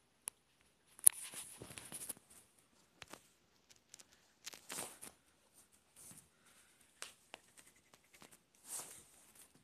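Sneakers stepping and stomping on carpet: irregular soft scuffs and thuds a second or two apart, with a sharp click about a second in that is followed by a stretch of rustling.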